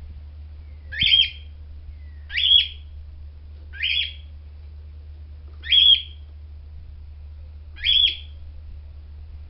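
A bird calls five times, each a short call that rises and then holds on a high note, spaced unevenly one to two seconds apart. A steady low hum runs underneath.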